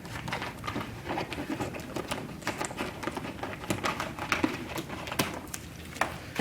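Self-adhesive contact paper crackling and rustling as it is trimmed and handled on a cardboard box, with many small irregular clicks and taps.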